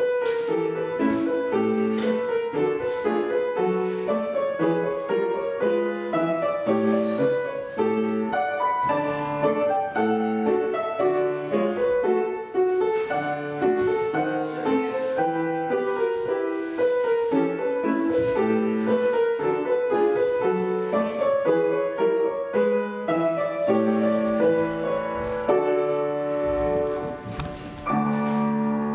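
Piano playing a steady, measured classical accompaniment for ballet barre exercises, closing on a held chord near the end.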